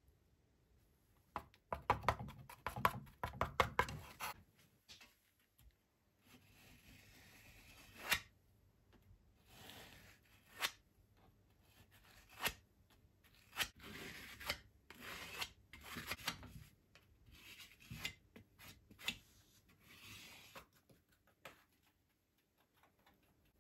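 Plastic spreader scraping two-part body filler: a quick run of rapid scrapes about two seconds in as the filler is mixed with its hardener, then single smoothing strokes roughly once a second as it is spread over a metal motorcycle mudguard and fuel tank, some ending in a sharp click.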